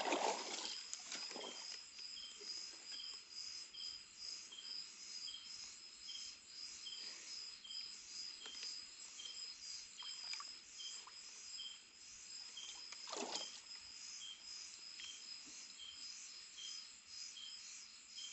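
Night insects calling: a steady high trill with a second insect's short chirp repeating at a steady pace. About two-thirds of the way through there is one brief soft rustle.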